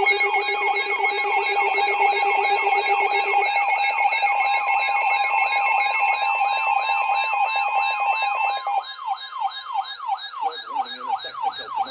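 Several weather alert radios sounding their alarms at once for a new flood warning: fast, repeating siren-like sweeps and a high warble over steady alert tones. Some of the steady tones drop out about three seconds in and again near nine seconds, and the sweeps carry on.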